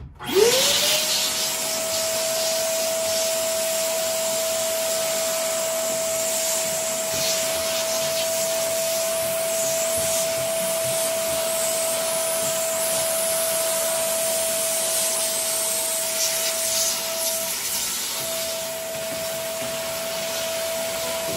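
Vacuum cleaner switched on, its motor spinning up within half a second to a steady high whine over a rushing hiss of air as it sucks up dust; the whine dips briefly near the end.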